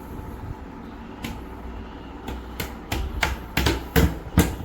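A series of sharp knocks on a desk panel as it is fitted onto its dowels, the knocks coming faster and louder toward the end.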